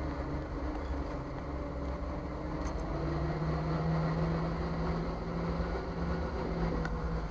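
Jeep CJ5 engine running as it drives at low speed, with a steady hum that grows stronger about three seconds in. A couple of faint, brief clicks sound over it.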